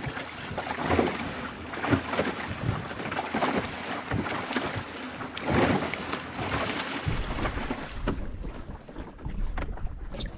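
Wind buffeting the microphone and water splashing against a small sailing boat's hull, coming in surges about once a second. About seven seconds in it changes to a deeper wind rumble with less splashing.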